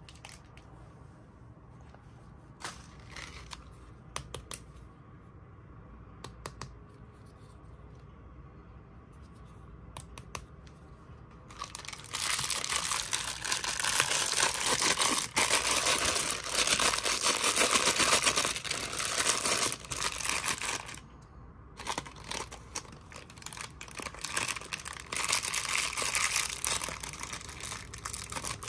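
Thin, crinkly white wrapper around a small toy being torn open and crumpled by hand. A few faint handling clicks at first, then loud continuous crinkling from about halfway, a short pause, and more crinkling.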